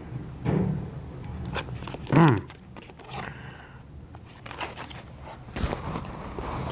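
A couple of brief, low vocal sounds from people at a desk, with faint taps and rustles of cards and paper being handled.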